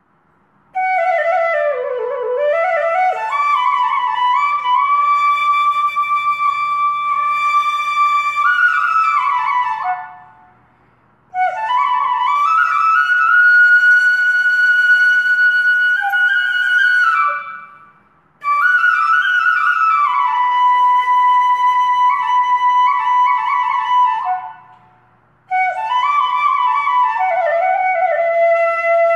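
Background music: a slow solo flute melody of long held notes that slide into pitch, in four phrases separated by short pauses.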